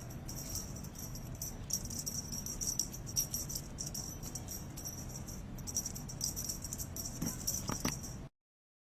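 Small bells jingling in irregular bursts over a low background hum, with a few light clicks near the end; the sound then cuts off abruptly to silence.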